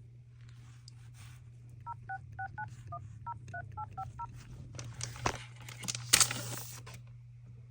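Phone dial-pad tones: about a dozen short two-note beeps keyed in quick succession. Rustling and a sharp clack follow near the end.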